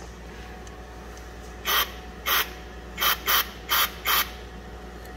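Aerosol can of Berryman Chemtool carburetor cleaner sprayed in six short bursts into the plugged fuel outlet under the tank. The cleaner is meant to blast loose a blockage that stops fuel flowing, most likely rust.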